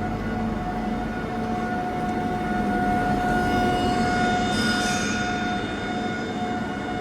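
Kao Ming KMC-636M portal milling machine running: a steady mechanical hum with a fixed whine, swelling louder and brighter around the middle.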